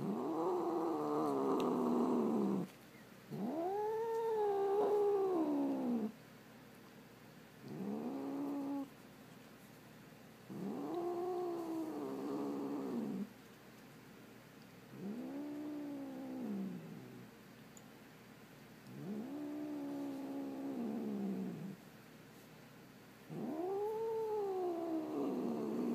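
Calico cat giving a string of seven long, drawn-out warning yowls, each rising then falling in pitch: a defensive threat call aimed at dogs she dislikes.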